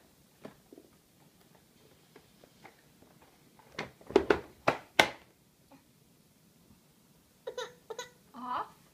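Plastic high-chair tray clattering: a quick cluster of sharp knocks and clicks about four seconds in. Brief voice sounds follow near the end.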